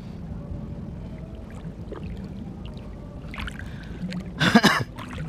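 Shallow water sloshing and trickling around someone wading, with one short, loud splash about four and a half seconds in.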